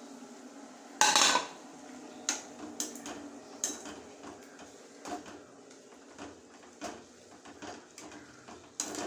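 Metal pots and a spoon clattering: one loud clatter about a second in, then scattered clinks and taps, as fried vegetables are tipped into a pan of simmering coconut milk and stirred.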